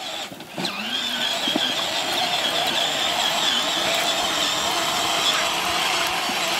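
Electric motors and plastic gearboxes of a Barbie Jeep ride-on toy car whining steadily as it drives across grass, the whine rising into place about half a second in.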